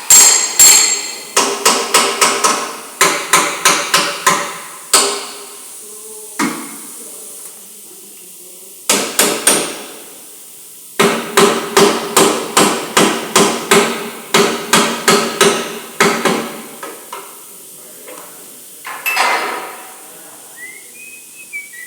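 Hammer blows on car body sheet metal, as in panel beating: fast runs of about three strikes a second, each blow ringing briefly, with short pauses between the runs. A brief rasping sound comes near the end.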